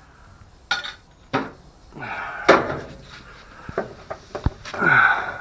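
Plastic control panel of a washing machine being worked loose and lifted off by hand: a series of knocks and clatters with scraping and rustling between them, loudest about halfway through and again near the end.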